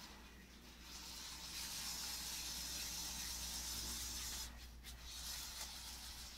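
LEGO Power Functions electric motors and gearing whirring as a small remote-controlled model car drives over a hard floor. It runs in spurts: a long run from about a second in, a short break, then a brief second run.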